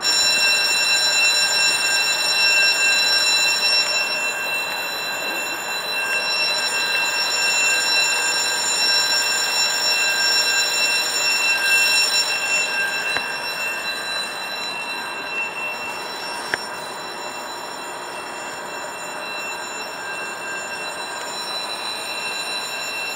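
Electric train running through the station, a steady high-pitched whine of several tones over the running noise, easing off after about thirteen seconds.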